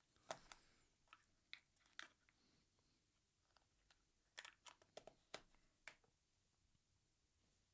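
Near silence, broken by faint scattered clicks and taps, about a dozen in all, most of them bunched between four and six seconds in.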